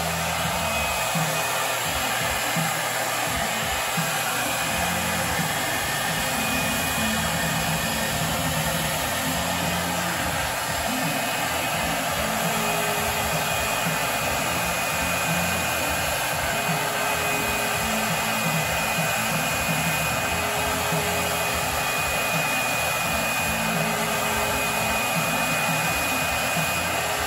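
Paint spray rig running while a spray gun coats cabinet doors: a steady, even airy hiss that holds at the same level throughout.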